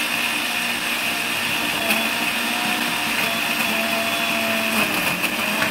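Braun countertop blender running steadily at speed, churning bread pieces with eggs and milk into a thick batter.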